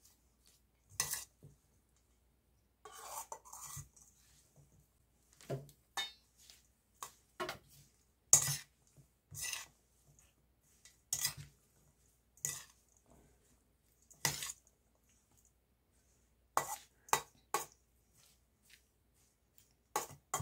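Stainless steel mixing bowl clinking and scraping irregularly as seasoned garlic stalks are tossed and mixed in it. Some of the knocks ring briefly.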